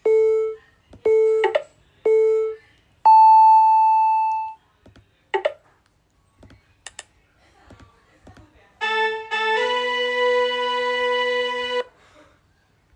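Synthesized electronic sound effects: three short, evenly spaced beeps, then a longer, higher tone that fades out, a couple of quick chirps, and near the end a sustained buzzy chord-like tone of about three seconds that cuts off suddenly.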